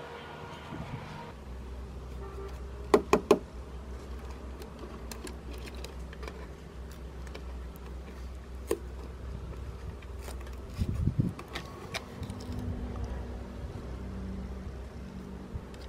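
Plastic clicks and knocks from a flat-screen TV's small speaker and its connector being unplugged and handled: three sharp clicks in quick succession about three seconds in, a single knock later, and a cluster of dull thuds past the middle. A steady low hum runs underneath.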